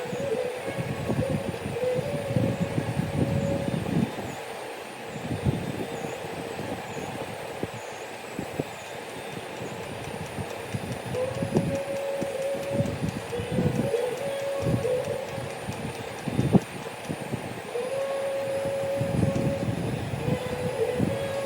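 An electronic beep tone sounding in held stretches of one to two seconds, with gaps between, over an uneven low rattling and rumbling of a small mechanism.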